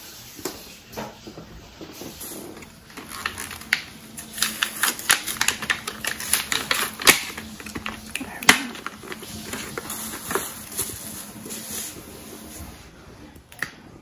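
Irregular clicking and crinkling of a plastic blister pack of markers being handled, thickening about four seconds in and thinning out near the end.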